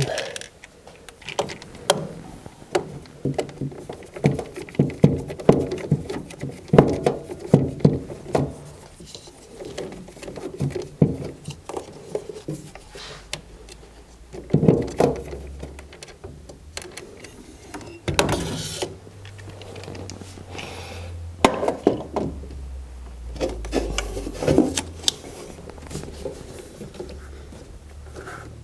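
Screws being worked out of a furnace vent pipe with a hand tool: a run of irregular clicks, taps and scrapes.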